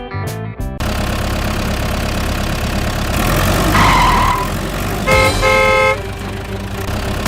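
Vehicle engine running steadily, with two short honks of a horn about five seconds in.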